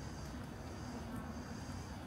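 Steady outdoor street ambience: a low rumble of traffic with a faint high steady hiss above it.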